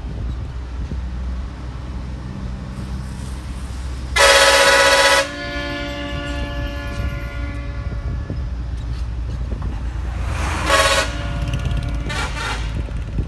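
Bus engine running steadily, with a loud blast of a horn sounding several tones at once about four seconds in, its tone hanging on and fading over the next two seconds. A shorter horn toot comes near the end, followed by a fainter one.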